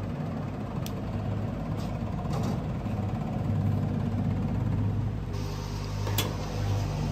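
Weber Searwood pellet grill running with a steady low hum, with a few light metal clicks as a pan is set on the grate and a sharp clank a little after six seconds as the lid is shut.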